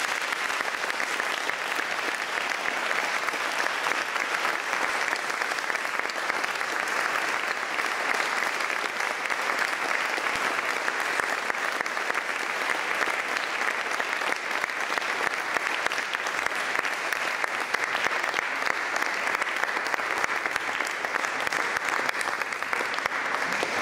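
Audience applauding steadily for a long stretch, fading out at the very end.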